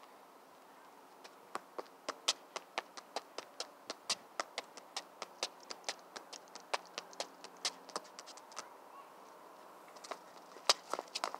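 A football being juggled on the feet: rapid light taps of the ball, about four touches a second for several seconds. After a short pause there are a few louder touches near the end.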